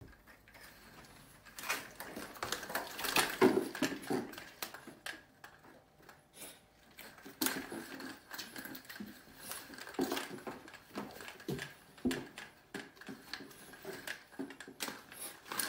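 Wooden window blind slats clacking and rattling in irregular bursts as a cat climbs and pushes between them, loudest a few seconds in.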